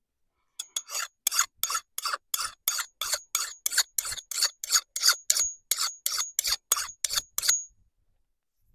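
A hatchet blade being sharpened by hand, about three or four quick metal-on-metal scraping strokes a second, many ending with a thin high ring. The strokes stop about a second before the end.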